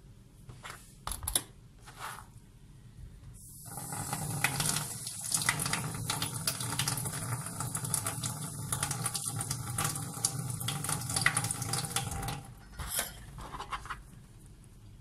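Water running steadily from a tap into a sink for about nine seconds, starting about three and a half seconds in, with a few light clicks before and after.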